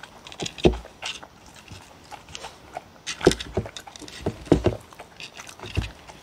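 Two dogs eating duck dog food from one wooden bowl: irregular chewing, biting and licking, with several dull knocks as the bowl is bumped on the wooden table.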